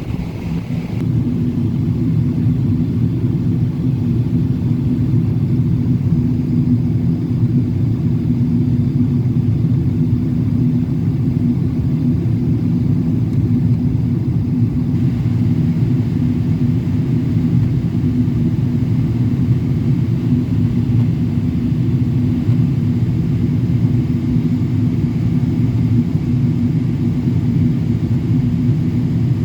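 Boeing 777-200LR jet airliner, a steady low rumble of its engines and airflow with a faint steady hum through it.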